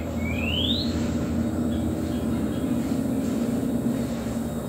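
A steady low rumble in the background, with a single rising whistled chirp, like a bird's, about half a second in.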